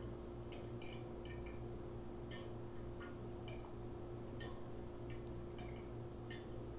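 Faint, irregular light clinks of a metal spoon against a glass jar as diced pineapple in syrup is spooned in, a few a second, over a steady electrical hum.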